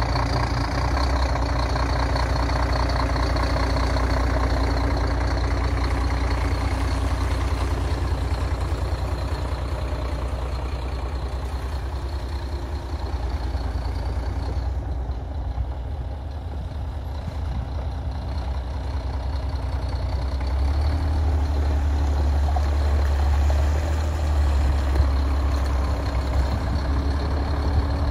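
Scania G440 hooklift truck's six-cylinder diesel engine idling with a steady low rumble, a little louder in the last few seconds.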